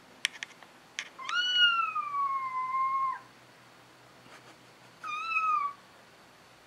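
High-pitched cat meows: one long drawn-out meow that slowly falls in pitch, starting about a second in, and a short meow near the end. A few sharp clicks come just before the long meow.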